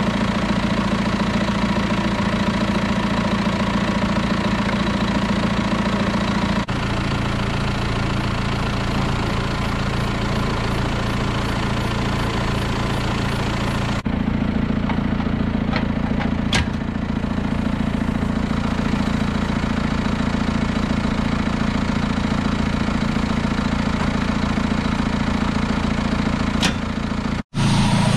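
Heavy diesel engine running steadily at constant speed, its sound changing abruptly a few times, with a brief dropout near the end.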